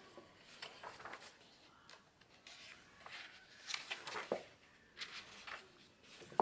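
Paper pages of a coloring book rustling and flapping as they are turned by hand, in several short rustles.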